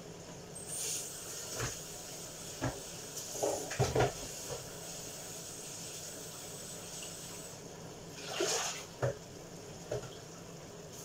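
Chicken adobo with bay leaves simmering in a frying pan on a gas burner, a steady low hiss, with a few scattered knocks and clatters of kitchenware.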